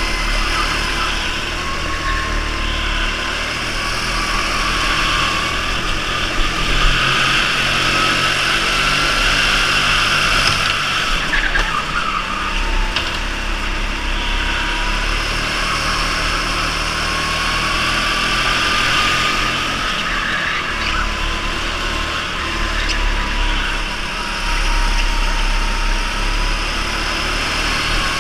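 Go-kart motor running flat out around a track, heard from on board: a whining tone that rises and falls several times as the kart speeds up on the straights and slows for the corners, over a steady rush of noise.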